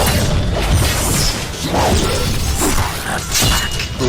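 Plastic toy packaging and a plastic toy being handled, with dense crackling, clattering and knocking.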